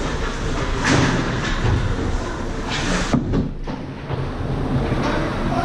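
Ice hockey play on a rink: skate blades scraping the ice and sticks clattering over the arena's steady rumble, with a few sharp knocks of stick, puck or boards.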